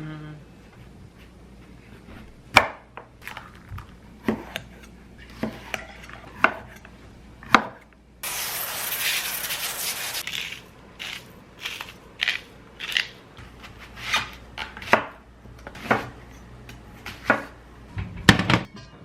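Items being handled and set down on a hard surface one after another: sharp clicks and knocks about once a second, with a steady hiss lasting about two seconds near the middle.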